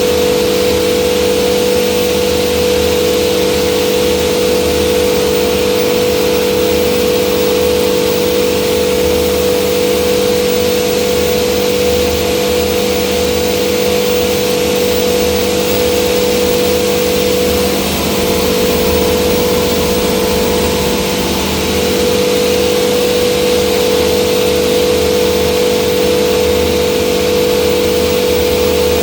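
Hammer-mill pulverizer of a soybean flour plant running steadily: a loud, constant machine drone with a steady hum over a rushing hiss.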